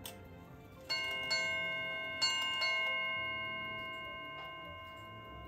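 Brass Tiffany & Co. ship's bell clock with a Chelsea Ship's Bell movement striking four bells in two pairs, ding-ding, ding-ding, then the bell ringing on and slowly fading. Four bells in ship's-bell time sounds the hour the hands show, 2 o'clock. A short click comes just before the first strike.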